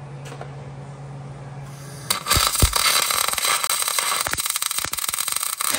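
Electric arc welding on a steel axle bracket: after a steady low hum, the arc strikes about two seconds in and crackles steadily in a dense sizzle of rapid pops.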